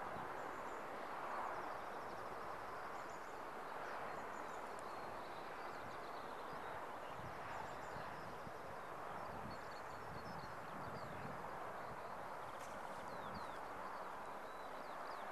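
Small birds chirping and singing in short, scattered phrases over a steady outdoor hiss.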